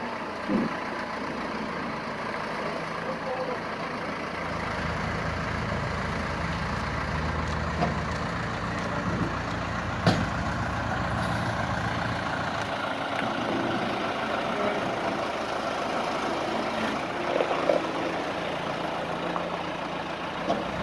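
Ingersoll-Rand telehandler's engine running steadily as the machine drives slowly across gravel. A single sharp knock about ten seconds in.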